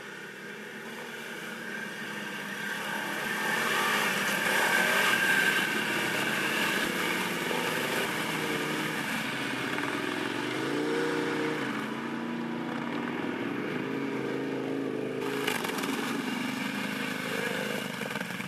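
ATV engine running, getting louder over the first few seconds, then its revs rise and fall repeatedly.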